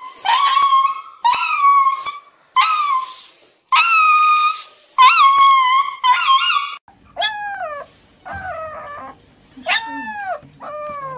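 Siberian husky in a cone collar howling and yowling in distress while held for an injection: about six loud, drawn-out cries of roughly a second each. About seven seconds in, after a cut, a small dog gives softer whining cries that each fall in pitch, about one a second.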